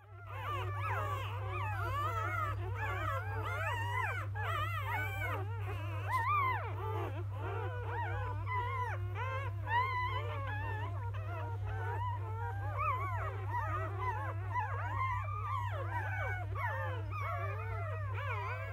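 A litter of newborn Labrador Retriever puppies squeaking and whimpering nonstop, many thin high cries overlapping each other. A steady low hum runs underneath.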